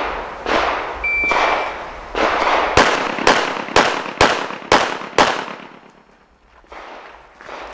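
Rapid 9mm pistol fire from a Smith & Wesson M&P9 Pro, about a dozen shots, each with a short echo. In the middle comes a fast string of six sharp shots about two a second, then a brief pause and a few more shots near the end.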